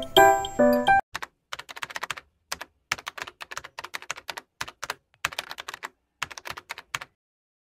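Computer keyboard typing, a long run of irregular key clicks in quick bunches that starts about a second in and stops shortly before the end. Light piano-like music plays for the first second.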